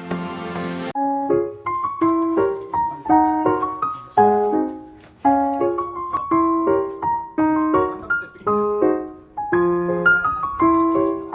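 Solo piano background music: a flowing melody of struck notes, each dying away. A different track cuts over to it about a second in.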